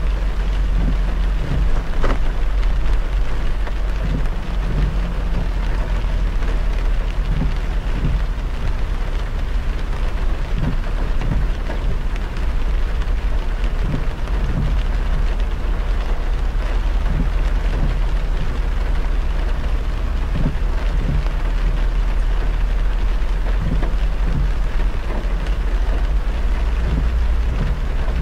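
A car driving on a rain-soaked expressway: rain hitting the car and the hiss of tyres on the wet road over a steady low road rumble, with many short soft taps throughout.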